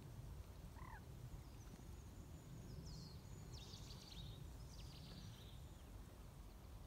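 Faint outdoor ambience: a low, steady rumble of wind or handling noise, with small birds chirping thinly and high in the distance, a cluster of short calls a few seconds in. No splash from a jumping fish is heard.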